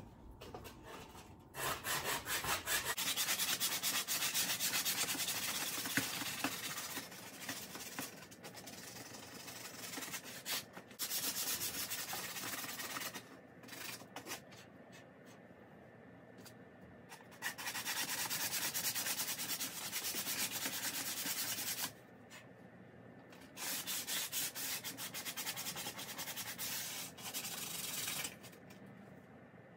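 Wooden board edge being sanded by hand with skateboard grip tape used as sandpaper: rapid back-and-forth rubbing strokes in several bouts of a few seconds each, with short pauses between.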